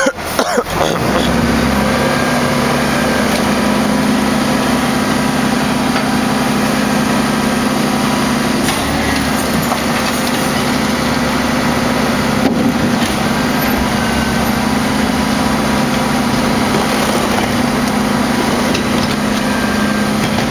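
Rear-loading garbage truck's diesel engine running steadily with a constant hum, as its packer blade cycles through the hopper. A few sharp knocks come just at the start.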